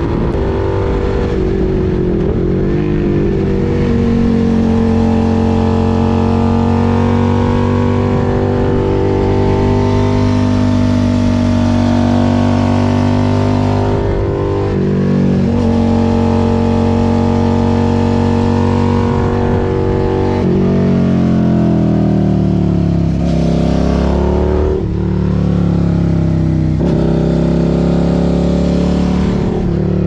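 Suzuki SV650 V-twin motorcycle engine running under way. Its note holds steady for long stretches, drops about halfway, and rises and falls several times in the last third.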